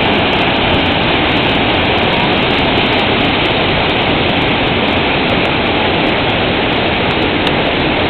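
Waterfall pouring over boulders into a pool: a steady, loud rush of falling water.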